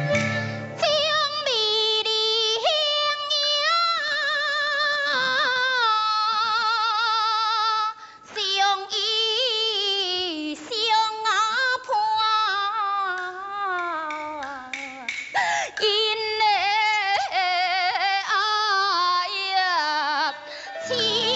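A female voice sings a slow Chinese opera aria with long held notes and wide vibrato, pausing briefly twice for breath. Traditional instrumental accompaniment comes back in at the very end.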